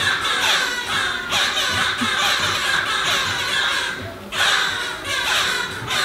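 A din of many overlapping squawking, chattering bird calls for a row of puppet birds. It breaks off briefly about four seconds in, then starts again.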